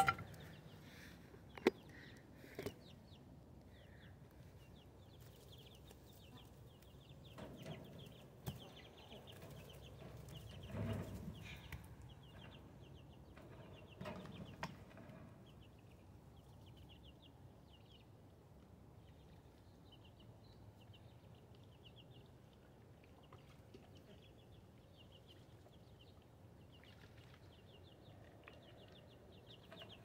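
Faint high peeping of young chicks in a brooder, repeated through the whole stretch, with a few knocks and rustles from handling the cage.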